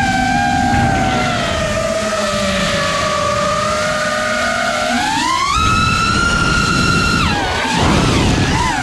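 Five-inch FPV quadcopter's 1700 kV brushless motors on 6S spinning Nazgul 5140 props: a steady whine that climbs steeply about five seconds in as the throttle goes to full for a top-speed run. It holds high for about two seconds, drops off sharply, then rises again near the end.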